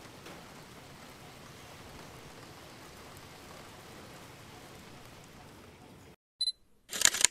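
A steady, even hiss that cuts off suddenly about six seconds in. A short high beep follows, then a brief loud burst of noise near the end.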